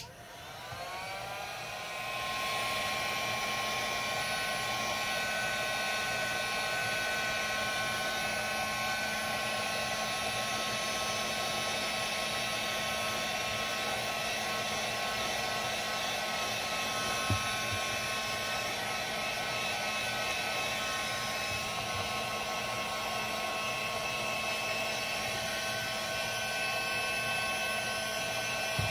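Heat gun switched on, its fan spinning up in pitch over about two seconds, then running steadily with a whine over the rush of hot air as it smooths the surface of a paraffin wax lantern.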